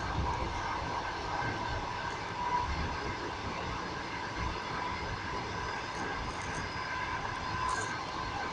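A moving passenger train heard from inside the carriage: a steady rumble of the wheels on the rails, with two steady tones running through it.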